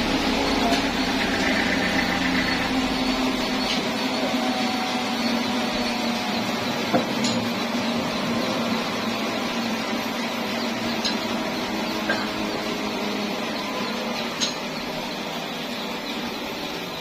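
Sawmill machinery running steadily with a constant hum, broken by a few sharp knocks spread through.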